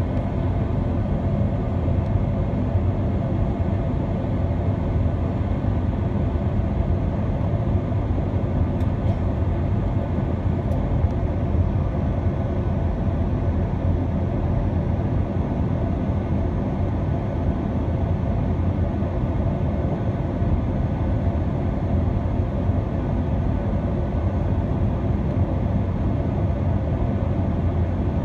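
Inside the cabin of a Boeing 757-200 taxiing: a steady low rumble of the engines at taxi power with a hiss of air, unchanging throughout.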